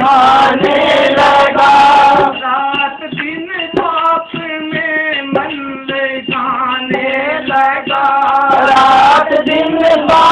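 Devotional bhajan being performed: a man singing over a harmonium's sustained chords, with hand strokes on a dholak drum.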